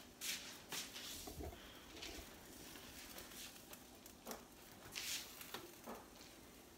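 Faint rustling and a few soft, short knocks and brushes: a handheld phone being picked up and carried close up.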